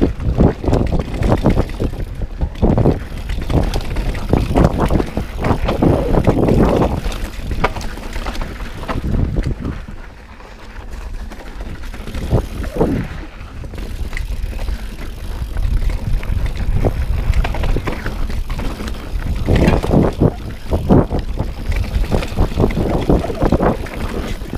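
Mountain bike riding fast down dirt singletrack: wind buffeting the microphone, with tyres on dirt and the bike rattling and clattering over roots and rocks. There is a brief lull about ten seconds in.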